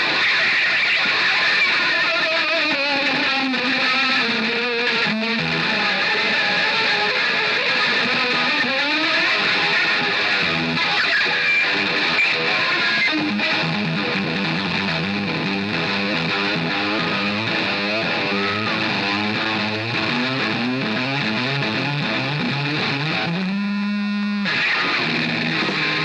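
Distorted electric guitar solo played live, with bent and wavering notes and runs of fast picked notes. A low note is held briefly near the end.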